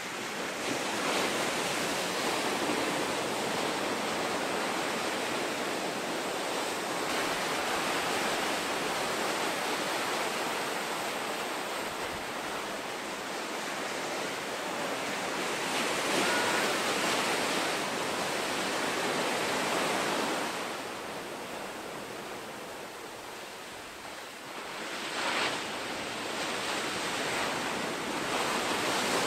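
Ocean surf breaking and washing ashore: a continuous rushing roar that swells and eases as waves break, dipping briefly before a short louder surge near the end.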